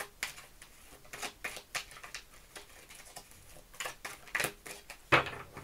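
A deck of oracle cards being shuffled by hand, the cards slipping and slapping against each other in quick irregular clicks, with a louder knock about five seconds in.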